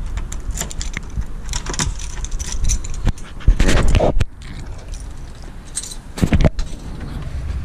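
A large bunch of keys jangling and clicking while a key is turned in a door's deadbolt lock, with two louder bumps of handling, about three and a half and six seconds in.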